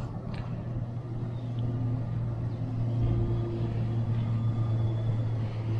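A steady low motor hum that gets a little louder about three seconds in.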